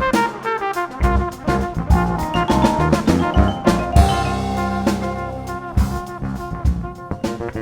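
Jazz quintet playing live: a brass line over drum kit with sharp strikes and cymbals, electric bass and keyboards, with a heavy accent about four seconds in followed by a held low bass note.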